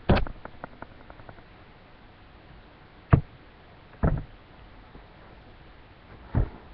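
A ring binder of trading cards in plastic sleeve pages being handled on a wooden table: a knock at the start followed by a few light ticks, then three separate knocks and thumps about three, four and six and a half seconds in.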